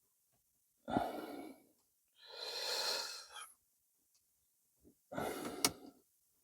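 A man's effortful breathing and grunts, three times, while he pries a plastic interior trim piece loose. A sharp click comes near the end.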